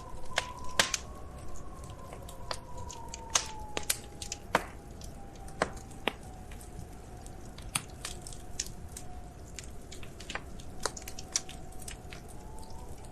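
Wood fire crackling in a fireplace: irregular sharp pops and snaps over a low hiss. A faint drawn-out tone beneath slowly dips and rises.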